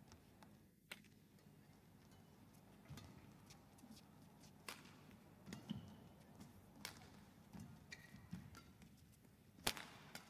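Faint badminton rally sounds: sharp cracks of rackets striking the shuttlecock at irregular intervals, the loudest near the end, with brief shoe squeaks and soft footfall thuds on the court mat.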